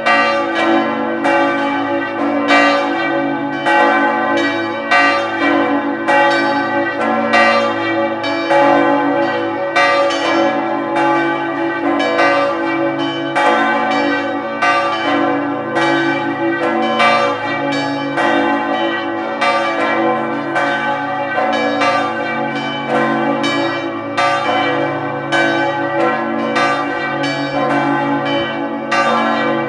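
Several church bells in the sanctuary's bell tower ringing together in a continuous full peal. Their strikes come several a second in an uneven, overlapping pattern over a steady hum of ringing tones.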